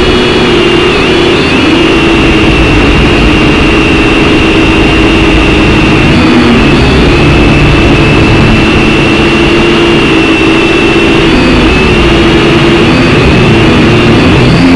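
Syma X5C quadcopter's small brushed motors and propellers whining steadily in flight, the pitch wavering slightly up and down as the throttle changes.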